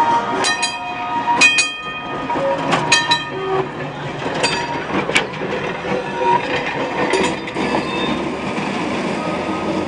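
Steel-wheeled streetcar (New Orleans Public Service car 832) rolling slowly past over a steady rumble, its wheels and trucks giving a series of sharp metallic clanks and rings at uneven intervals of about a second, the clicks of wheels crossing rail joints.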